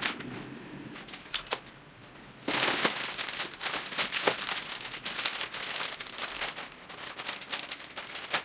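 Clear plastic wrapping crinkling as a backpack is lifted out of a cardboard box and the bag is pulled off it. It starts about two and a half seconds in, after a few light rustles, and goes on as dense crinkling full of small crackles.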